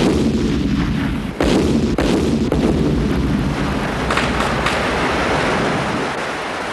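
Depth-charge throwers firing from a destroyer's deck: a sudden boom at the start and another about a second and a half in, over a dense low rumble.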